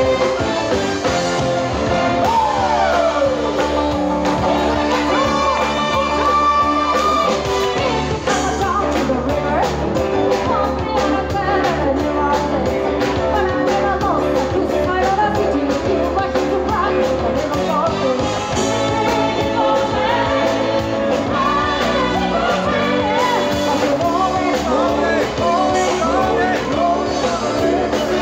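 Live band playing an upbeat song with a steady drum beat and a saxophone and trumpet horn section, while a woman sings lead into a microphone.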